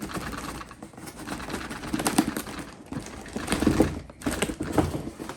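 Cardboard box and plastic packaging rustling and clattering as a Beyblade stadium set is unpacked by hand, with a few louder knocks about two, three and a half and five seconds in.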